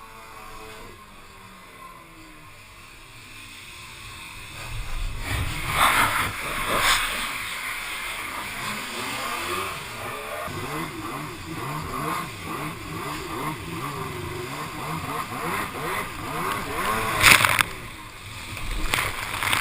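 Two-stroke stand-up jet ski engine running on the water, its pitch rising and falling as the throttle is worked. Loud noisy bursts come about six and seven seconds in and again near the end.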